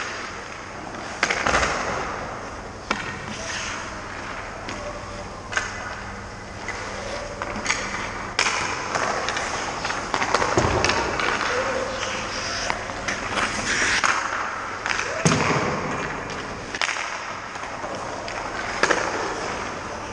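Ice hockey skate blades scraping and carving across the ice close by, with a few sharp knocks and thuds of sticks and pucks, the heaviest about ten and fifteen seconds in.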